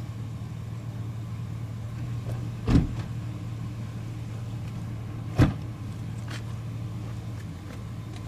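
A steady low mechanical hum, with two sharp cracks about two and a half seconds apart.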